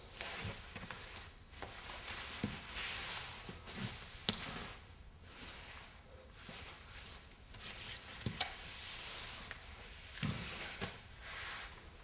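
A body rolling and sliding across a paper-covered floor: swelling rustles and scrapes of cloth and paper, broken by a few dull thumps and short knocks.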